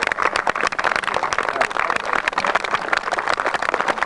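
Indistinct crowd of spectators talking at once, no single voice clear, with a dense patter of clicks through it.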